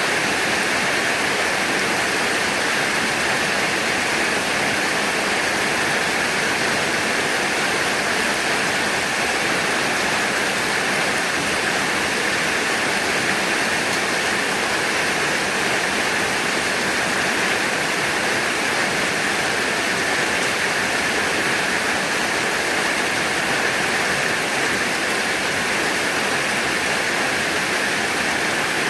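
Heavy rain pouring steadily: a dense, even hiss with no let-up and no thunder.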